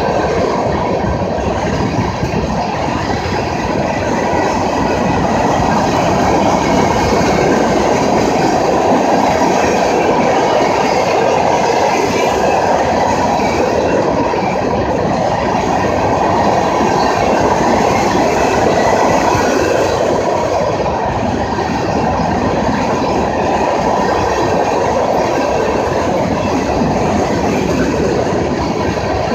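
Freight train cars passing close by: steady, loud rolling noise of steel wheels on the rails from a string of hopper cars.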